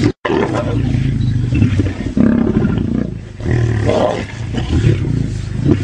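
A group of lions growling at a kill, low growls overlapping and swelling again and again. The sound cuts out completely for a moment just after the start.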